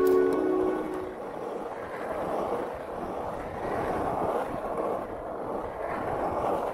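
Skateboard wheels rolling on an asphalt pump track: a steady rough rumble that rises and falls a little in level, with some wind on the microphone.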